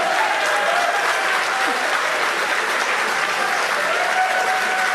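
Crowd cheering and applauding, with shouts and whoops, as the Falcon 9 first-stage booster lands on the drone ship.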